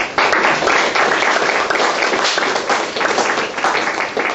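Audience applauding: many people clapping at once, starting suddenly and carrying on steadily.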